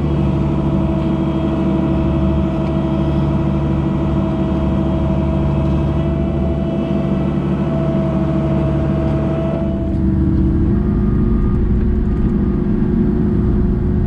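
Engine running at a steady speed, its pitch and loudness shifting slightly about ten seconds in.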